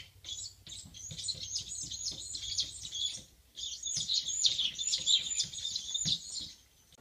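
Rapid high-pitched chirping like a small bird twittering, in two runs of about three seconds each with a short break a little past three seconds in.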